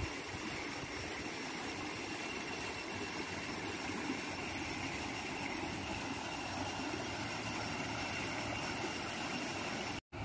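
Steady outdoor rushing noise with a thin, constant high-pitched whine above it, cutting off abruptly near the end.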